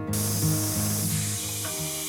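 Steam locomotive venting steam: a steady hiss that starts suddenly just after the beginning, with background music under it.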